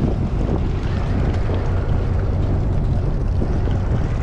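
Steady low rumble of a sportfishing boat's engine running, with wind on the microphone.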